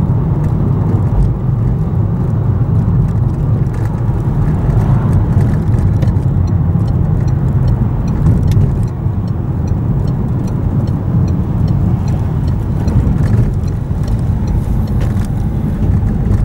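Steady low engine and tyre rumble heard from inside a moving car's cabin.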